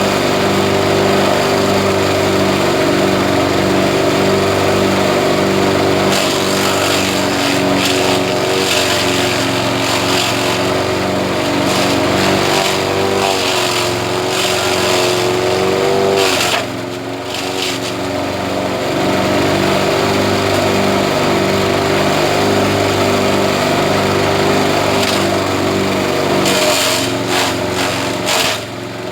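Engine of a grass chopping machine running steadily. Its pitch wavers and then sags briefly about halfway through. A rushing noise comes and goes over it in two long stretches.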